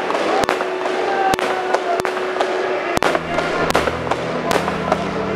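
Fireworks shells bursting overhead: about seven sharp bangs at irregular intervals, some with a rumbling tail. Steady musical tones play under them, with a low chord coming in about three seconds in.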